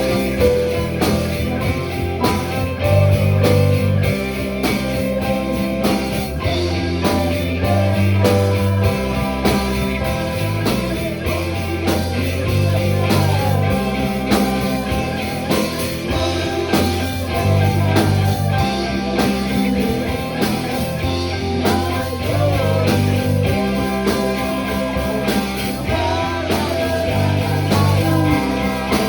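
A rock band playing a song, with drums, bass, guitar and a singing voice, at a steady beat.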